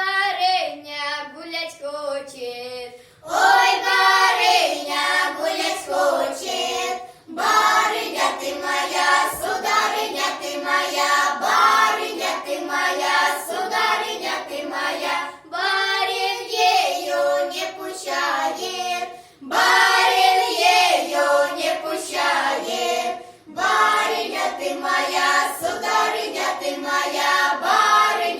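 Children's folk ensemble singing a Russian folk song in chorus. A single voice carries the first line, and the group comes in about three seconds in, singing in phrases of roughly four seconds with short breaks between them.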